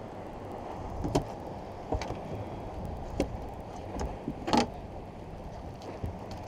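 Fishing gear and a landing net handled on a boat: a few sharp knocks and clicks, the loudest about four and a half seconds in, over a steady low rumble of wind and water.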